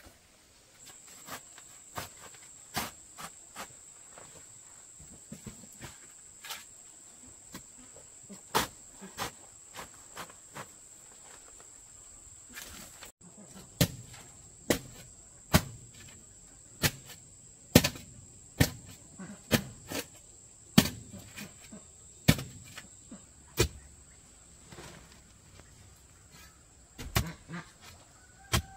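A steady high-pitched insect trill, with a string of sharp knocks throughout that come about once a second and grow louder in the second half.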